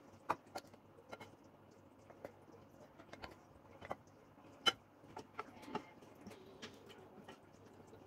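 Faint, irregular taps and scrapes of a wooden spoon against a glass bowl and ceramic plate as couscous is scooped from one into the other, with a louder knock about halfway through.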